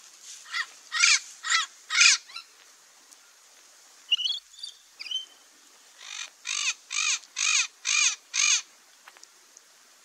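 Rainbow lorikeet giving harsh calls: four in quick succession at the start, a few thin high squeaks around the middle, then five evenly spaced calls, about two a second.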